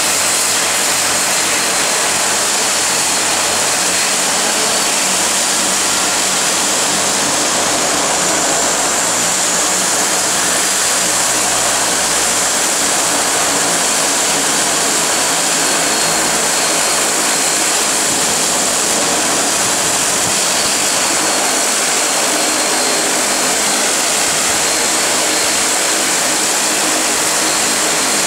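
Turboprop engines of a de Havilland Canada DHC-6 Twin Otter floatplane running steadily, a constant turbine whine over a loud rushing hiss.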